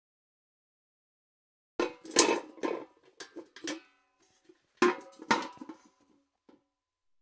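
Steel bucket clanking and rattling with short metallic rings, in two bursts of several knocks: one about two seconds in, another about five seconds in.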